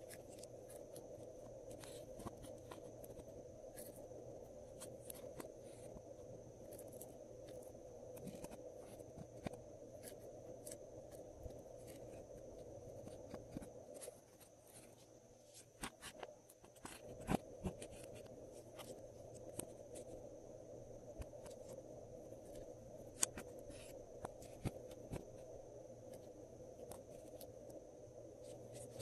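Glossy slime being worked by hand: scattered soft sticky clicks and snaps, some sharper than others, over a faint steady hum.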